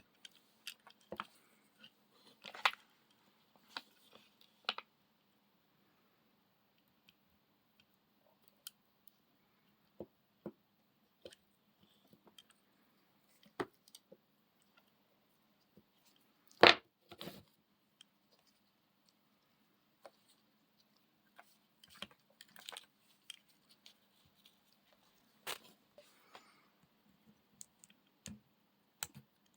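Scattered clicks, taps and crinkles of small parts being handled on a workbench during a battery pack rebuild, with one louder knock about seventeen seconds in.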